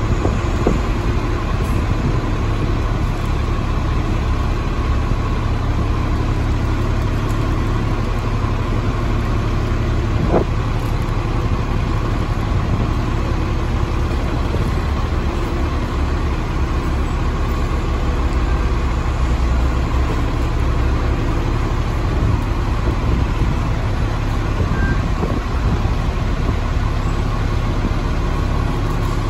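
2007 Orion VII diesel transit bus idling steadily at the stop, with a single short knock about ten seconds in.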